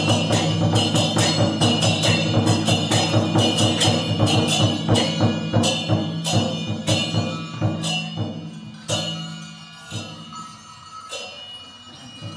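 Lion dance percussion of drum and clashing cymbals playing a fast, even beat that slows and thins after about seven seconds into a few sparse strikes with ringing.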